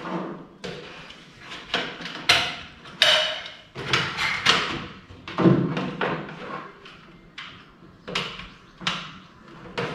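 Irregular knocks, clunks and scrapes as tube light fixtures are set down and shifted inside a wooden box, with one heavier, deeper thud about five and a half seconds in.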